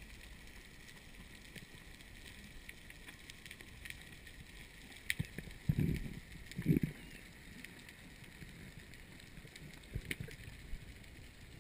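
Underwater ambience: a steady faint hiss with scattered sharp clicks, broken by two short low thumps less than a second apart near the middle.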